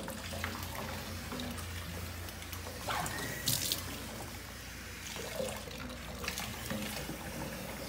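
Water running from a pull-down kitchen faucet sprayer over a small dog's fur and into a stainless steel sink, a steady spray with a brief louder noise about three and a half seconds in.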